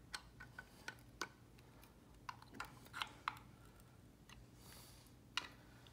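Faint, scattered light metallic clicks of a T-handle wrench and the ignition module against the cam chest cone, as the module's standoff screws are snugged and the module is checked for movement. The clicks are denser in the first few seconds, with one more just after five seconds.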